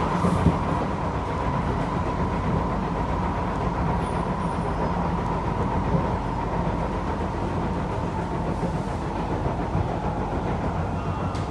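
Cabin noise of a Kawasaki-Nippon Sharyo C751B metro train running along the track: a steady low rumble with a steady high whine through it.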